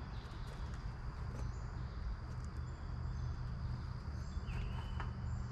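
Woodland ambience: steady high insect chirring over a low rumble, with one short whistled bird call about four and a half seconds in.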